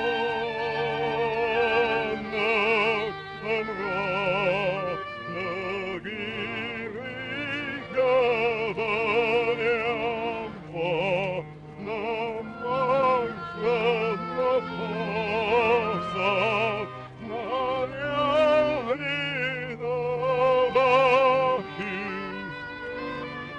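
Operatic singing: a high classical voice with wide vibrato sings long phrases over sustained low accompanying notes, pausing briefly between phrases.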